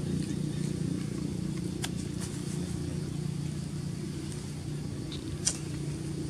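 Steady low hum of a running engine, with two brief sharp clicks, the louder one about five and a half seconds in.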